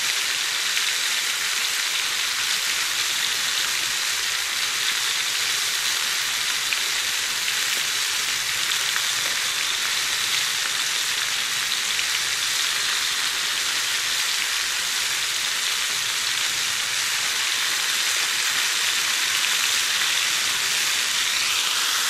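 Flour-dredged fish pieces frying in hot oil in a pan, giving a steady, even sizzle.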